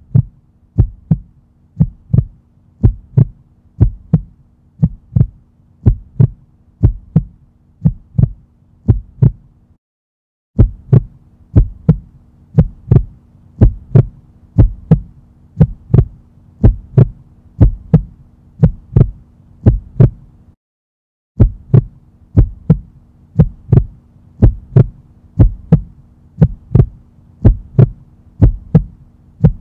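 Heartbeat sound effect: paired lub-dub thumps about once a second over a steady low hum, breaking off briefly twice, about ten and twenty seconds in.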